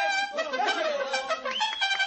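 Mariachi band playing, with trumpets carrying the melody.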